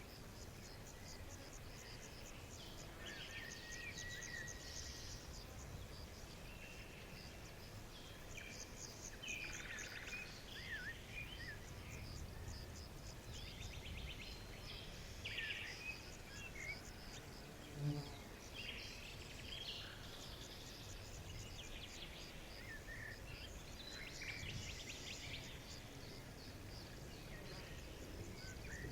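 Outdoor nature ambience: many birds chirping, with quick trills and short falling whistles scattered throughout, over a steady low background hum. A brief low thud about eighteen seconds in.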